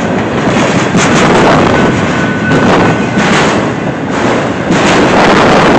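Freight train cars rolling past at close range, a loud steady noise of wheels running on the rails, mixed with wind buffeting the microphone.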